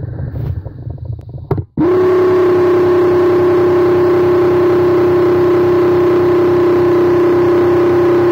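Graco X-Force HD handheld airless paint sprayer's motor and piston pump running at a steady high pitch with a fast even pulsing while spraying paint. It starts abruptly about two seconds in, after a short low rumble.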